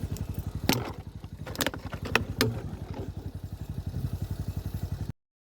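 An engine running at idle, a steady fast low thumping, with a few sharp clicks over it in the first half; it cuts off abruptly near the end.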